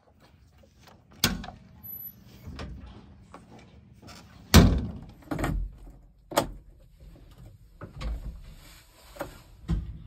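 A run of sharp knocks and thumps from a Bobcat B900 backhoe loader's cab, about six in all, the loudest a cab-door slam about four and a half seconds in.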